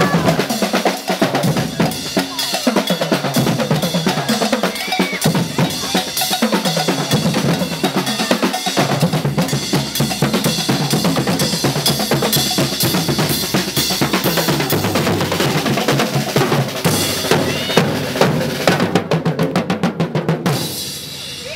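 A marching drum troupe plays a driving rhythm on large bass drums and snare drums. Near the end the drummers break into a fast roll, then the playing stops sharply.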